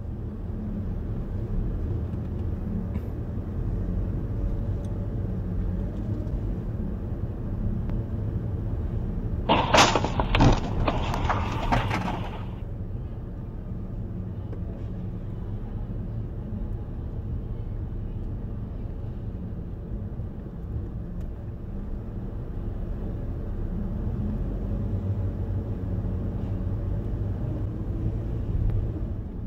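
Steady engine and road drone of a car on a wet highway. About ten seconds in comes a loud vehicle collision, a few seconds of crashing impacts, before the drone settles again.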